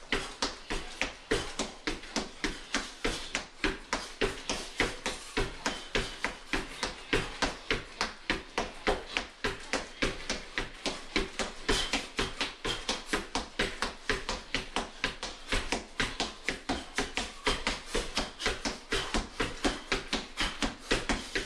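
Quick, even thuds of feet stepping in place on a hardwood floor, a sneakered foot and a prosthetic foot, about three a second, during fast standing mountain climbers.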